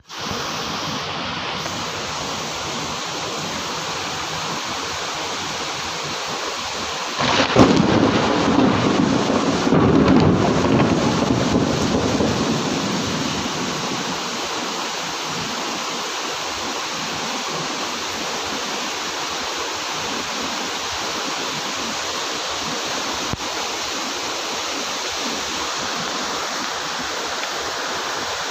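Steady heavy rain falling. About seven seconds in, a thunderclap breaks out and rumbles for several seconds before fading back under the rain.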